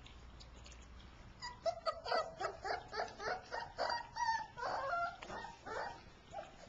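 Weaning-age puppies whimpering and yipping: after a second and a half of faint clicks, a fast run of short, high calls, about four or five a second, that thins out near the end.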